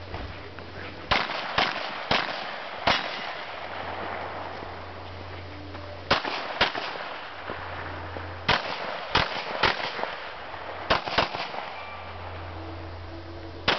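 Pistol shots in quick strings: four, then a pair, then three, then another pair, with pauses of a few seconds between the groups.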